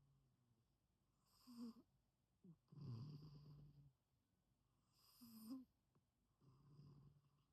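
A sleeping pet snoring softly: about four slow, noisy breaths, each up to a second and a half long, coming every second or two.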